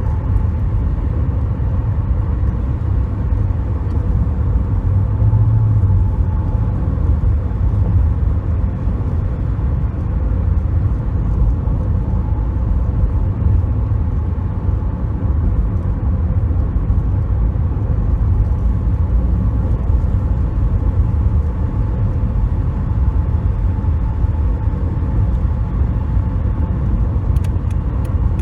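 A 2007 Toyota Corolla driving, with a steady, loud low rumble of road and engine noise. No knocking or clunking stands out.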